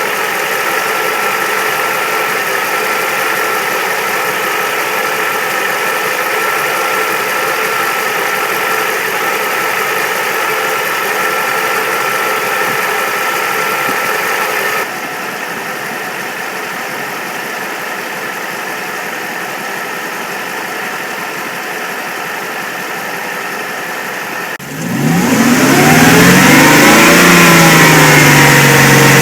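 Mercedes-Benz E500 (W124) V8 engine idling steadily, with an abrupt drop in level about halfway through. Near the end it is revved: it gets much louder and its pitch rises, falls and rises again.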